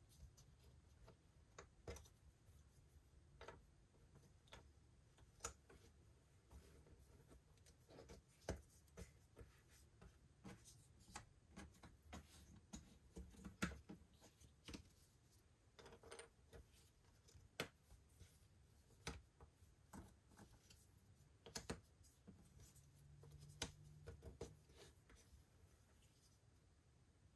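Faint, irregular clicks and taps of cardboard jigsaw puzzle pieces being picked up, set down and pressed into place on a table.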